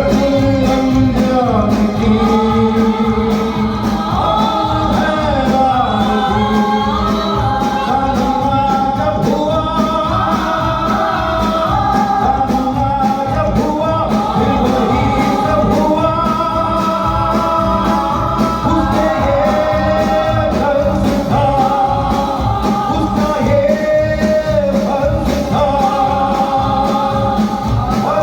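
Live song performance: a band playing a melody over a steady beat, with singing.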